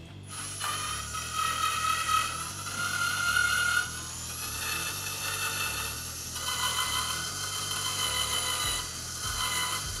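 Small electric motor and plastic gearing of a Double E Hobby E115 radio-controlled Volvo FMX dump truck running with a steady gear whine. The pitch steps to a new level three times as the operator works the transmitter.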